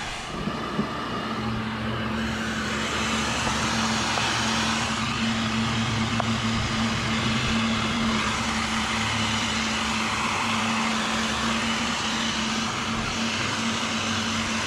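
Electric heat gun running steadily, its fan blowing hot air with a hum under it, warming vinyl to soften it for stretching over a seat. It gets a little louder about two seconds in.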